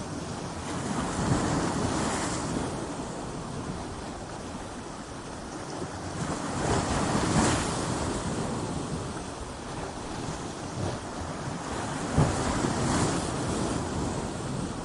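Ocean waves breaking on a shore. The surf swells up in a rush three times, about every five to six seconds, with quieter stretches of washing water between.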